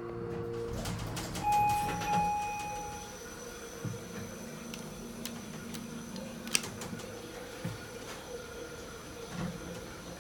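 Otis Series 1 elevator's door operator and doors sliding, a low mechanical hum with scattered clicks. A brief steady electronic tone sounds about a second and a half in, and a single sharp click comes just past the middle as the door-close button is pressed.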